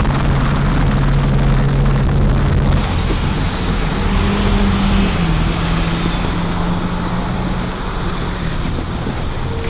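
Light turbine helicopter running at close range while hovering: a steady loud rush of rotor and engine noise with a low hum and a thin high whine. About three seconds in the whine drops out and the noise turns steadier and duller, with low hums that shift in pitch.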